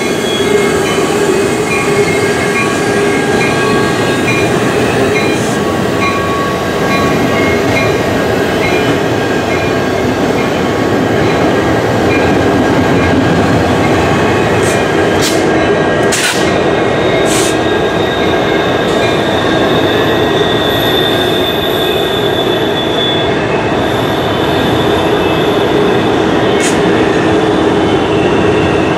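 Diesel freight locomotives passing close by: a lashup of CN EMD SD75Is and CSX GE units hauling loaded tank cars, engines running with a steady rumble. Several sharp metallic clanks come around the middle, and a steady high wheel squeal runs through the later half.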